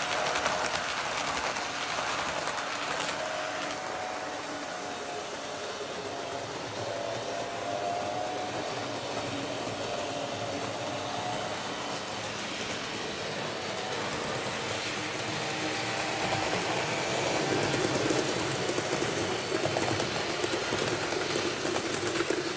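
Model train running on its layout track: the NS 1100 electric locomotive model's motor whirring with a slightly wavering whine as it and its coaches roll along the rails, getting louder in the last few seconds.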